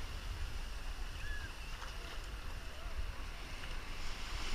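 Shallow ocean surf washing and foaming around the legs, with wind buffeting the microphone as a steady low rumble. Faint distant voices are heard.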